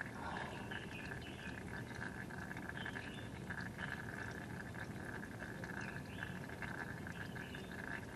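Faint background of animal calls: a steady high buzz with short chirps scattered throughout.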